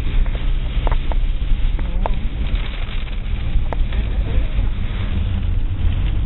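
Wind buffeting the microphone as a loud, steady low rumble, with a few brief faint clicks.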